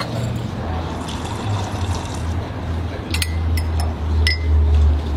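Coffee pouring into a china cup, a steady liquid filling sound, with a few light clinks of cup and saucer about three to four seconds in.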